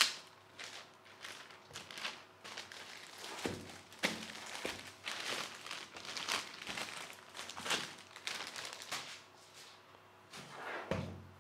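Clear plastic shrink wrap being torn and peeled off a cardboard product box, crinkling in irregular bursts, with a few soft thumps as the box is handled and set down on the table.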